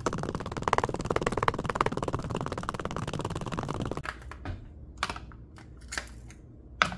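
Metal spoon stirring rapidly in a plastic cup, clattering fast against the sides while mixing a powder into milk, for about four seconds. After that, a few single clinks and taps as ice cubes go into the drink.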